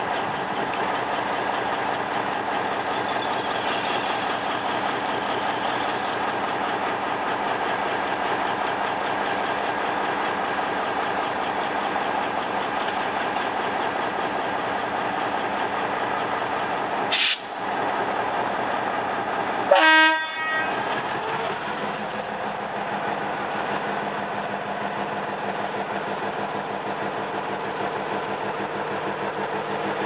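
GR12 diesel-electric locomotive running with a steady engine drone. A brief sharp burst comes about 17 seconds in, then a short horn blast about 20 seconds in; after it the engine note changes as the train pulls away.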